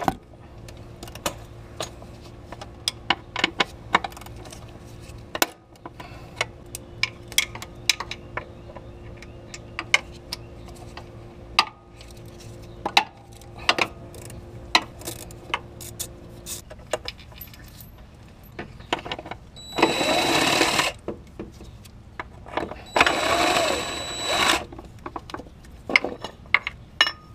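Scattered metallic clicks and clinks of a socket wrench working the 12 mm starter-bracket bolt, with two bursts of rapid ratcheting, each over a second long, near the end.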